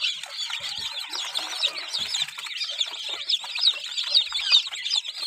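A brooder full of newly hatched chicks peeping constantly, many short high cheeps overlapping each other.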